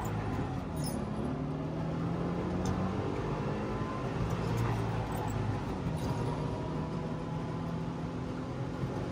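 Trabant 601's two-stroke two-cylinder engine running while driving, heard from inside the cabin over road noise, its pitch shifting up and down a few times.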